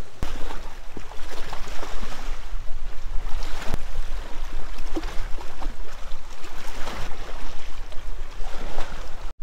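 Choppy waves washing and splashing against shoreline rocks, a steady rushing with small irregular splashes. Wind rumbles on the microphone throughout.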